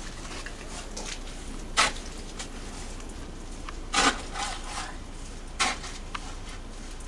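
Three short scraping knocks, a couple of seconds apart, over a steady background hiss.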